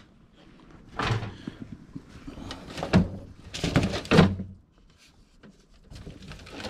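Stored junk being moved and knocked about by hand: a few thuds and scrapes, the loudest about four seconds in.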